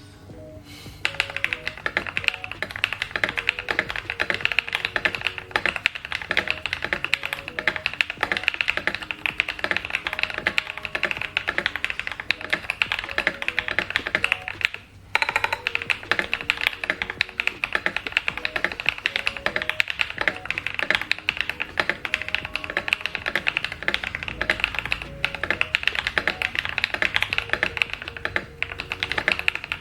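Fast, continuous typing on an MG75 mechanical keyboard with Leobog Graywood V4 switches (40 g, lubed with 205g0) and Cherry-profile ABS doubleshot keycaps, the case dampened with tape mod and PE and Poron foam. The typing starts about a second in and pauses briefly halfway through.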